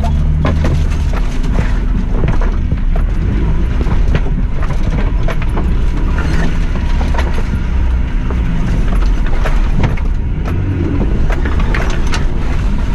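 Suzuki Jimny crawling over a rocky, washed-out lane: a steady low engine drone with frequent knocks and clatters of tyres and underside on loose rock.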